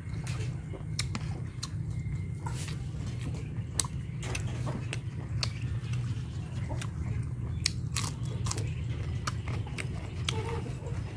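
A man chewing a mouthful of boiled pork fat, with many irregular wet mouth clicks and smacks. A steady low hum runs underneath.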